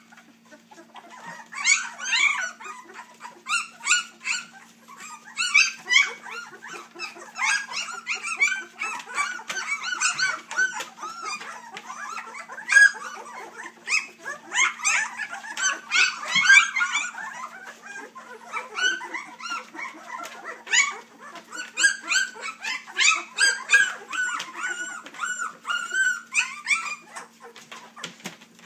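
A litter of three-week-old Labrador puppies whining, many short high cries overlapping almost without pause. A steady low hum runs underneath.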